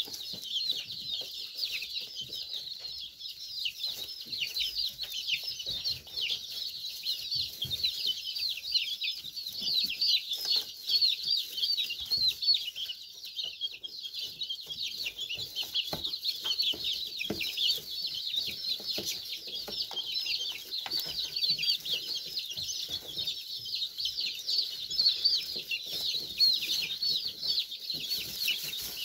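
A flock of young chickens peeping nonstop, with many short, high, falling calls overlapping one another and occasional soft taps underneath.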